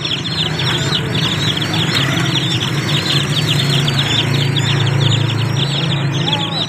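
Many small birds chirping continuously, a rapid stream of short, high, falling chirps, over a low steady drone that swells in the middle and fades near the end.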